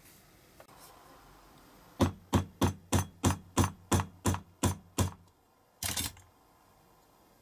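Ten sharp taps in an even rhythm, about three a second, from hand-tool work on a small metal part, followed about a second later by a brief scuffing noise.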